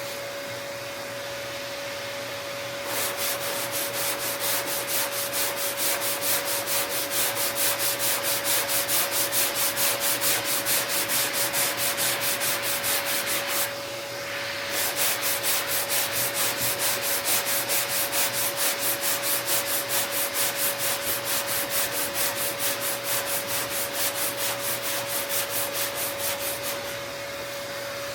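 Sandpaper on a sanding block rubbed back and forth across a car's steel fender, a rhythmic rasp of about two to three strokes a second. It starts about three seconds in, pauses briefly about halfway, and stops near the end, over a steady hum in the shop.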